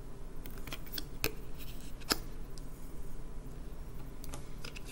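Round cardboard oracle cards handled and laid down on a wooden tabletop: a few light taps and clicks, the two sharpest about a second and two seconds in.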